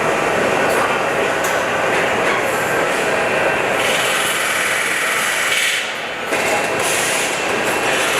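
Steady din of engine-plant machinery, with a few sharp metallic clicks. The noise dips briefly about six seconds in, then picks up again.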